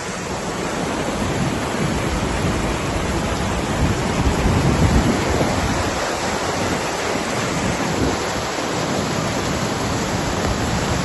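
Heavy tropical downpour with muddy floodwater rushing down a street: a steady, dense rushing noise.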